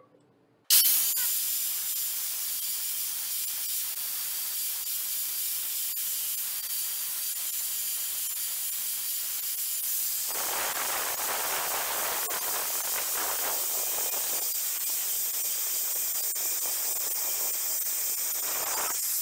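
Angle grinder with a diamond blade running with a steady high whine and hiss. About ten seconds in, the blade starts grinding the edge of the tile's circular cutout, adding a coarser grinding noise that runs until the sound cuts off near the end.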